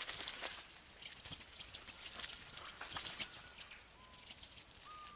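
Jungle ambience: a steady high hiss with scattered small ticks, and a couple of short faint whistled bird notes near the end.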